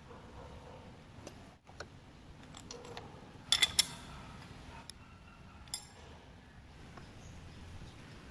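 Sharp metal clinks of hand tools on machine workholding as a steel shaft is clamped into a dividing-head chuck and the tailstock nut is tightened with a wrench: a quick cluster of clinks about three and a half seconds in, with a few single clicks before and after, over a faint steady workshop background.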